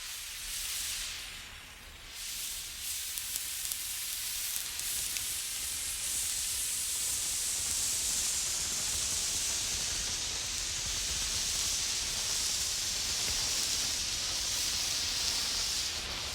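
A burning flare giving off a steady, sizzling hiss as it is moved about; the hiss builds over the first few seconds, then holds.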